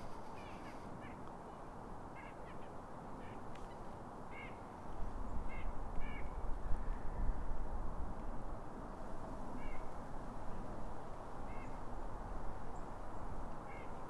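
Wind buffeting the microphone as a low rumble, setting in about five seconds in, with short, faint bird calls repeated every second or two.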